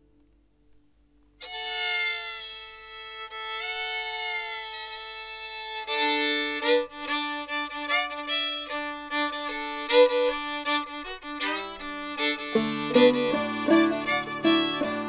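Old-time string-band fiddle starting a new tune on its own after a short silence: a long held note with slides, then the quicker notes of the tune. About twelve seconds in, plucked guitar bass notes come in underneath, as the rest of the band joins.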